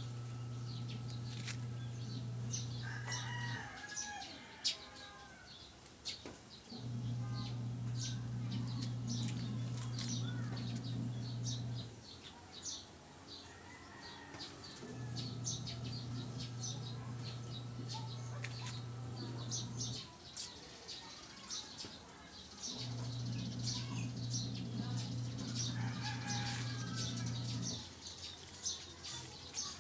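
A motor hums in spells of about five seconds with pauses of two to three seconds between them, four times over. Small birds chirp throughout, with a few louder calls now and then.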